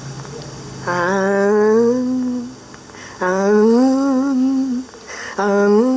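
A voice humming three long drawn-out notes, each sliding up in pitch at its start and then held with a slight waver, with short gaps between them.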